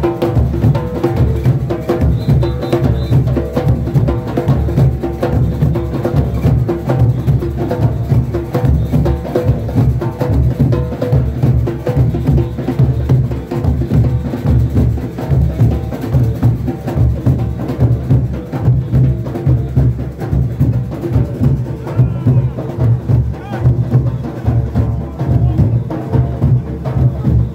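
Junkanoo band playing loudly: goatskin drums and cowbells keeping a steady beat, with horns playing over them.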